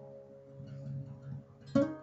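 Acoustic guitar being played: held notes ring out and fade under a few soft picked notes, then a sharp strummed chord near the end.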